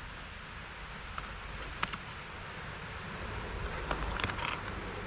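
Faint scraping and rustling from soil and ground debris being worked in a hunt for worms, in a few short scratchy clusters about half a second in, between one and two seconds, and around four seconds, over a steady low rumble.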